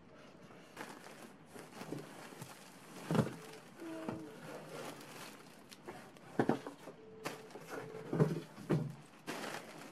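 Cardboard box flaps rustling and plastic wrap crinkling as a large plush cushion is pulled out of a shipping box, with several knocks along the way.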